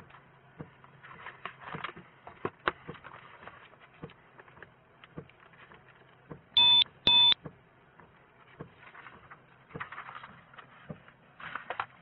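Two short, loud electronic beeps in quick succession a little past halfway through, over a low steady hum, with faint clicks and rustling of papers being handled.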